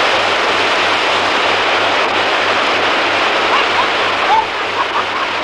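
Loud, steady rush of river water pouring over a concrete weir. Children's voices call out briefly about two-thirds of the way through.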